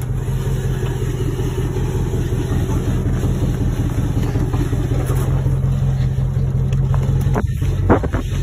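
Dodge Ram 1500's Hemi V8 running steadily at low revs as the truck crawls along. A few sharp knocks come near the end.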